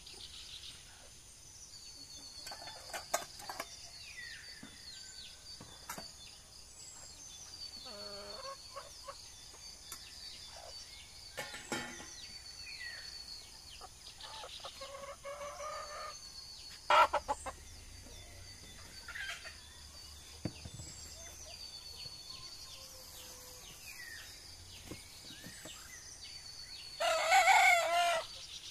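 A rooster crows once near the end, loud and lasting about a second, over scattered short bird chirps, a few clicks and a steady high-pitched drone.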